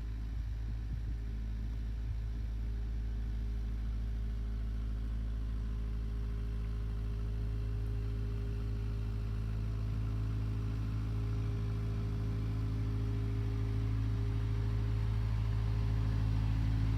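Boat engine running steadily at low revs, a low even hum that slowly gets louder.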